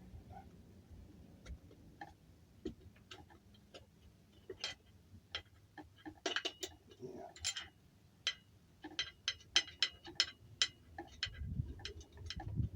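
Wrenches and nuts on a wheel mount giving irregular metallic clicks and clinks as the nuts are worked loose. The clicks come more thickly in the second half, with a low handling rumble near the end.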